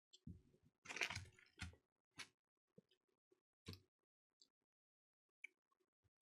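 Faint eating sounds: a person chewing a chicken burrito, a few short smacks and crunches, the loudest about a second in.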